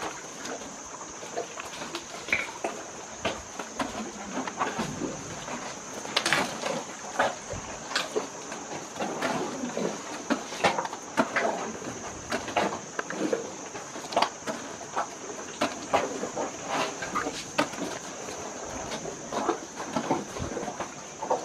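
Asian elephants rummaging with their trunks in plastic baskets of food: irregular rustling, cracking and knocking as the food is stirred and picked out.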